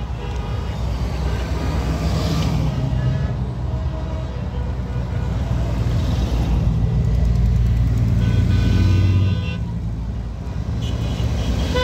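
Honda Gold Wing motorcycles and trikes riding slowly past one after another, their engines running steadily. Brief higher-pitched tones come over the engines about eight seconds in and again near the end.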